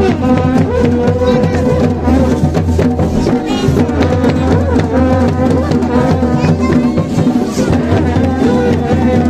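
Music with steady drumming and a melody line over it.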